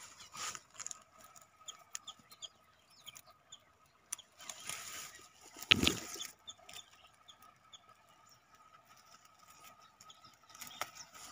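Leaves and flower spikes of a bushy African basil plant rustling as a hand grabs and bends them, with one sharp knock of handling about six seconds in. Small birds chirp now and then in the background.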